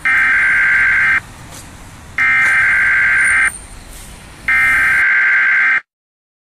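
Three loud blasts of a steady-pitched, buzzer-like alarm tone, each a little over a second long and about two seconds apart. The third runs slightly longer, then cuts off sharply. It is the siren call of the Siren Head creature, laid in as a sound effect.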